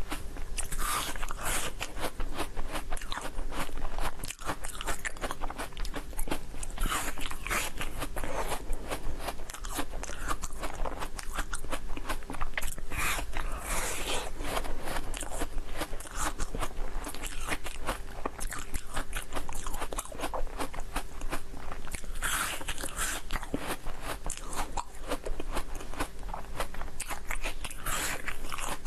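Close-miked crunching and chewing of a frozen jelly cup. The chewing is steady, with a louder crunching bite every several seconds.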